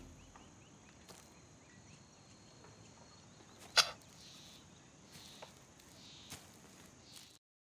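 Quiet woodland ambience with a few faint bird chirps, then soft footsteps rustling through leaf litter about once a second. A single sharp snap about four seconds in is the loudest sound.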